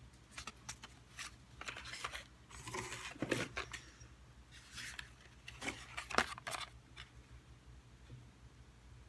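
Plastic blister packs of small figurines being handled: scattered crinkles, clicks and taps of stiff packaging, loudest a little after six seconds in.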